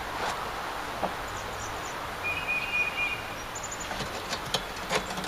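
Outdoor background noise with a bird chirping briefly near the middle, and a few light clicks or taps.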